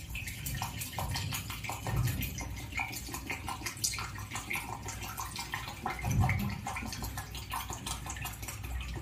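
Water poured in a steady stream from a plastic bottle into the upper plastic container of a Kent Gold Optima gravity water filter, splashing as it lands.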